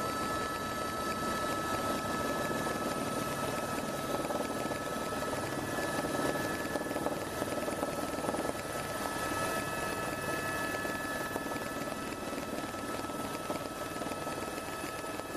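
Helicopter in flight, heard from on board: a steady drone of engine and rotor with a steady high whine over it.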